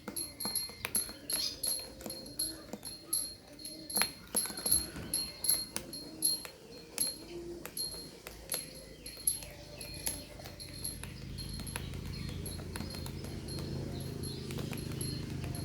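Quick, irregular clinks of a spoon against a glass of dalgona coffee, each clink ringing briefly, several a second. They thin out after about ten seconds, as a low rumble builds.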